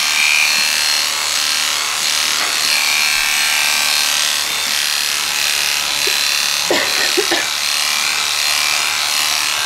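Electric dog-grooming clipper with a 9 mm comb attachment running steadily as it shaves through a wet, felted poodle coat. Its buzz swells and eases as the blade works through the matted hair.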